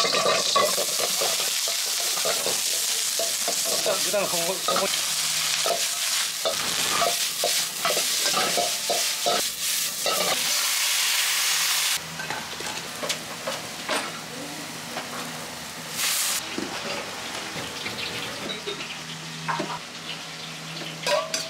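Vegetables stir-frying in a hot wok over a gas burner: loud, steady sizzling, with the metal ladle clanking and scraping against the wok. A little over halfway through it cuts to a quieter kitchen with a low hum and occasional clinks.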